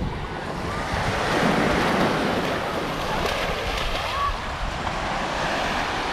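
Gulf surf washing onto a sandy beach, with wind buffeting the microphone in a low rumble. The wash swells a little about a second in.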